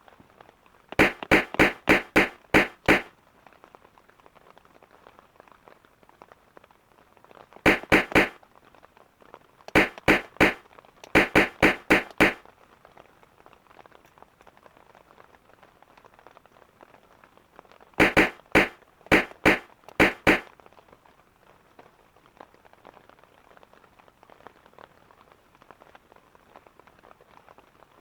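Bursts of sharp knocks, each burst a quick run of blows about four a second, with pauses of a few seconds between the bursts, over a faint steady hiss.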